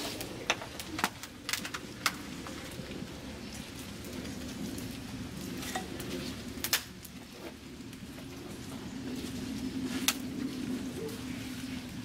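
Wood fire crackling: a steady low hiss with sharp pops, several in the first two seconds and a few more later.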